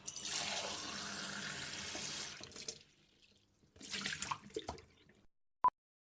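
Water running into a cup, first steadily for about two and a half seconds, then in a second shorter, more broken pour after a brief pause. A short single beep sounds near the end.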